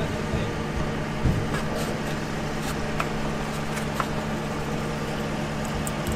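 Steady low machine hum in the background, with a few faint clicks and taps as parts are fitted back into a car's engine bay.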